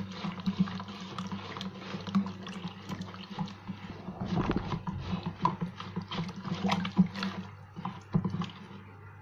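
A silicone spatula stirring liquid pickling brine in a plastic bowl: liquid sloshing, with irregular small taps of the spatula against the bowl. A steady low hum sits underneath.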